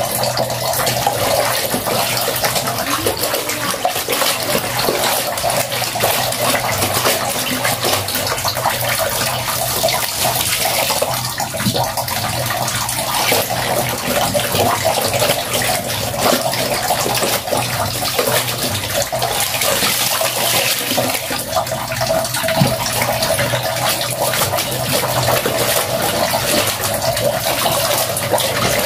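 Soapy water sloshing and splashing in a plastic basin as clothes are scrubbed and swished by hand, with irregular small splashes throughout.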